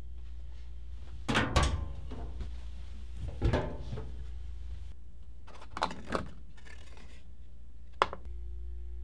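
A cabinet door opening with a couple of thunks about a second in, followed by objects being handled and shifted on a laundry shelf, two light clicks, and one sharp click near the end, all over a steady low hum.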